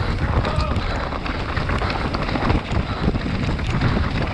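Mountain bike descending a rough enduro trail: wind rushing over the camera microphone, with constant rattling and knocking from the bike over the rough ground.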